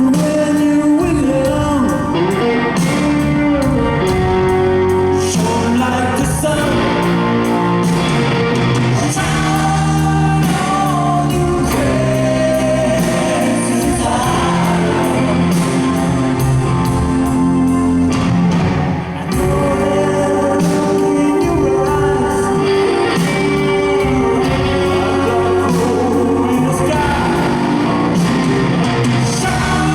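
A rock band playing live, with a lead vocal over sustained chords. It plays on steadily, with no break.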